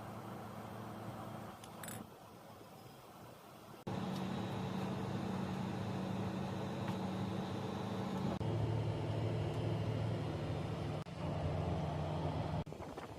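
Steady mechanical hum of running machinery with a low, pitched drone. It changes abruptly in pitch and loudness several times, getting louder about four seconds in.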